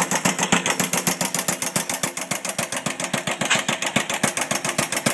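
Myers Bulldozer pump converted to a two-stroke engine, running steadily with an even, rapid beat of roughly ten firings a second.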